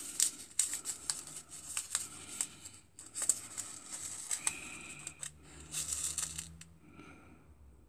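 A paper seed packet being torn open and handled, the paper crackling and rustling in quick sharp clicks that die away near the end.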